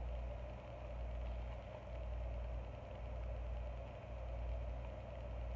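Steady low hum of room background noise, even throughout, with no handling clicks or other events.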